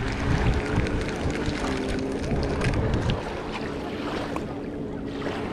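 Steady hum of a motorized watercraft's engine out on the lake, under wind buffeting the microphone; the wind rumble eases about three seconds in.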